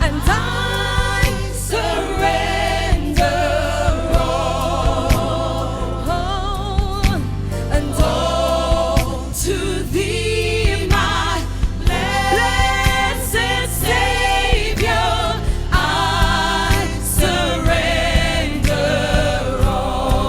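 Gospel worship music: singers holding long notes with wide vibrato over a band with bass and a steady drum beat.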